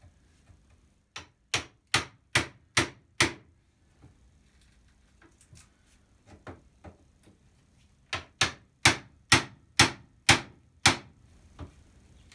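A hammer striking a chisel, driving it into the old wooden window sill to knock the sill off: two runs of sharp blows, about six and then about seven at two to three a second, with a few lighter taps between.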